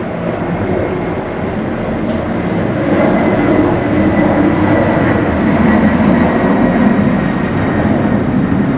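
Loud, steady jet noise from the twin turbofan engines of a Boeing 767-300ER at takeoff power as it climbs out. It swells a little from about three to seven seconds in.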